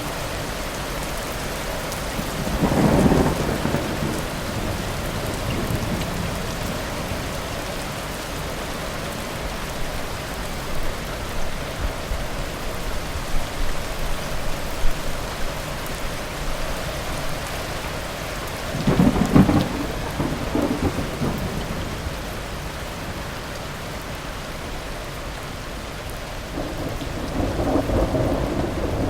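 Thunderstorm: steady heavy rain with rolls of thunder, the loudest rumbling about three seconds in and again about two-thirds of the way through, with another building near the end.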